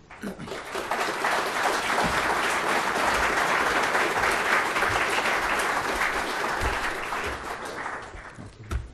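Audience applauding: the clapping builds up over the first second, holds steady, then dies away over the last couple of seconds. There is a single knock near the end.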